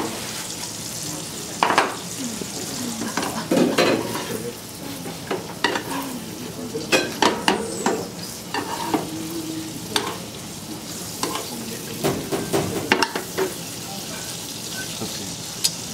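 Food sizzling in a hot frying pan, with repeated sharp clicks and knocks of a utensil against the pan and cookware.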